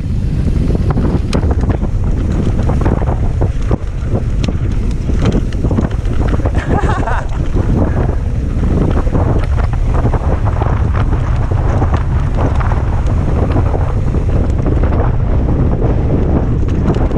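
Heavy wind rushing over the microphone of a downhill mountain bike speeding along a rough dirt track, with many small knocks and rattles from the bike over bumps.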